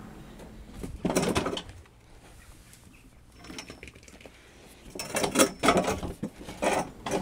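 Hard plastic shredder lid being handled and seated onto the plastic body: scraping and knocking in two spells, a short one about a second in and a longer one from about five seconds in, with a quiet stretch between.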